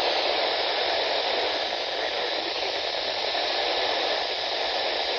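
Steady radio static: an even hiss with no voice on the channel.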